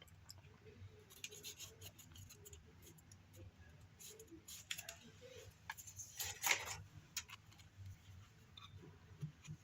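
Oracle cards of thin matte cardstock being handled and taken out of their box: quiet scattered clicks and rustles of card, with a louder scrape a little past the middle.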